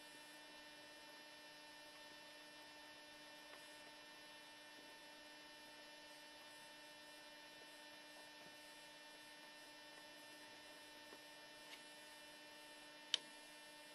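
Near silence with a faint, steady electrical hum; a single faint click near the end.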